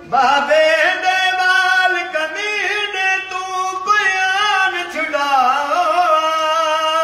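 A man singing a noha, a Shia mourning lament, unaccompanied. He sings long held notes whose pitch bends and wavers.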